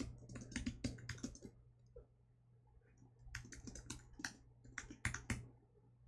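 Typing on a computer keyboard: a quick run of keystrokes at the start, a pause of about two seconds, then a second run of keystrokes from about three seconds in.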